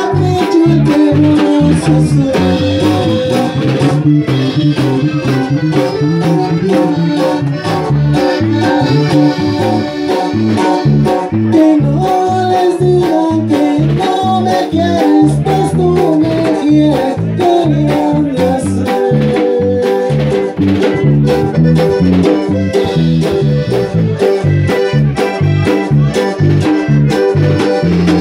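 Live norteño band playing a dance number loudly: a steady bass beat with a sustained melody over it and some singing.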